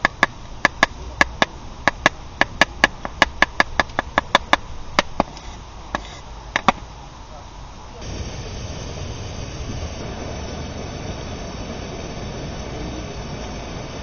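A run of sharp knocks, roughly three a second, like a knife chopping on a cutting board, stopping about seven seconds in. A steady hiss starts about a second later.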